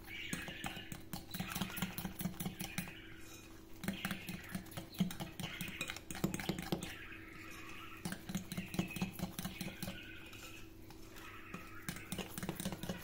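Metal hand whisk stirring thick cake batter and flour in a glass bowl: quick, uneven runs of clinks and scrapes against the glass, with short pauses between them.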